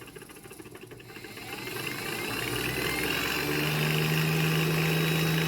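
3D-printed axial flux brushless DC motor and the generator it drives spinning up: a whine that rises in pitch and grows louder over the first few seconds, then settles into a steady running hum with one strong steady tone.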